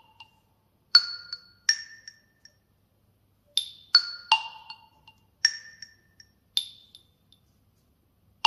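OnePlus 10 Pro ringtone: a sparse melody of single chime-like notes, each struck and quickly fading, about seven notes spaced irregularly with short silences between them.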